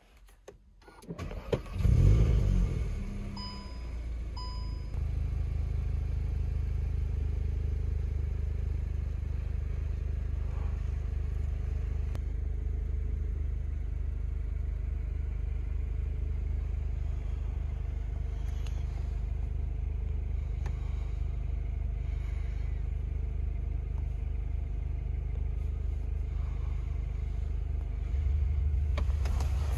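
Cupra Leon's 2.0 TSI turbocharged four-cylinder petrol engine starting, flaring up about two seconds in, then settling into a steady idle. Two short electronic beeps sound a couple of seconds after the start, and the engine gets a little louder near the end.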